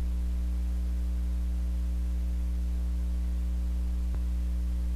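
Steady low electrical mains hum with a faint hiss underneath, picked up by the recording chain. There is one faint click about four seconds in.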